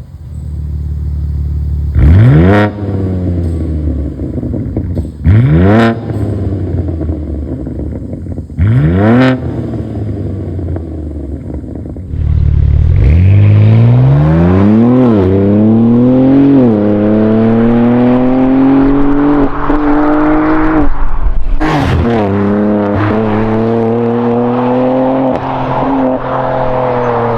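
Sound test of a BMW G87 M2's twin-turbo inline-six through a valvetronic aftermarket catback exhaust. The engine is blipped sharply three times a few seconds apart, each rev rising fast and falling back. About halfway through it is brought up and held at high revs, the pitch climbing slowly, with one sharp crack a few seconds before the end.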